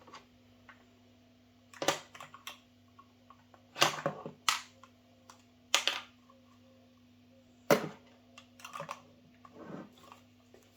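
Short sharp clicks and knocks, about half a dozen spread unevenly, from plastic Play-Doh toy pieces being handled and set down on a table, over a faint steady hum.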